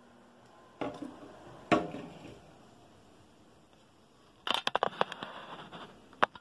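Two knocks as a small plastic drone and its remote controller are set down on a glass tabletop, the second the louder. A little later come quick clicks and rustling of the camera being handled, with one last click near the end.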